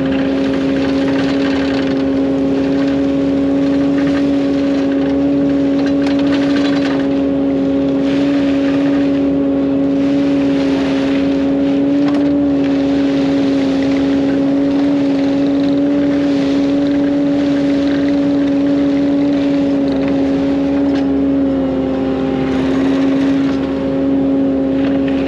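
Heavy diesel construction machine engine running at steady high revs, a loud even drone whose pitch dips slightly about 21 seconds in.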